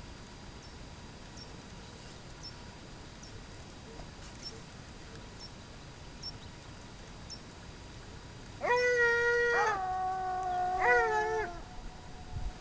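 Ariégeois scent hounds giving tongue on a hare's trail: long, held bays, two hounds at different pitches overlapping, starting about two-thirds of the way in. Before them, faint high chirps come about once a second.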